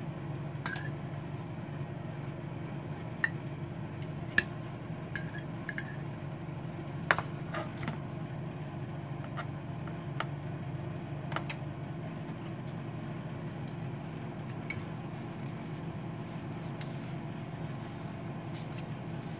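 A kitchen knife clicking and knocking against a plastic food container and a ceramic plate while slicing salt-cured salmon, in scattered sharp clicks over a steady low hum.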